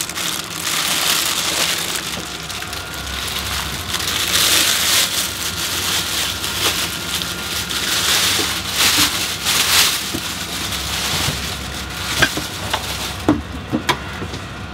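Plastic wrapping crinkling and rustling as a glass-topped gas hob is handled in its bag, with a few sharp knocks near the end as it is set down into its cardboard box.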